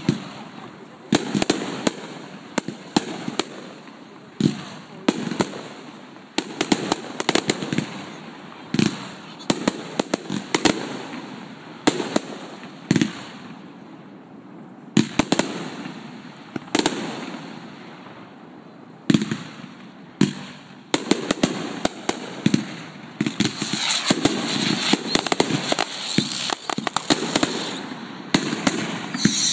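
Fireworks bursting overhead: sharp bangs at irregular intervals, each dying away in an echo, building near the end into a dense run of rapid pops and crackle.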